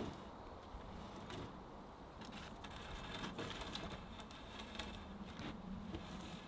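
Wooden pole knocking against a log roof frame as it is pushed up and set in place. One sharp knock comes right at the start, then scattered lighter knocks and clicks of wood on wood.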